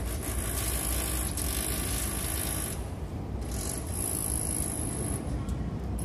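Outdoor street background noise: a steady low traffic rumble, with a thin high hiss that drops out briefly about halfway through and again near the end.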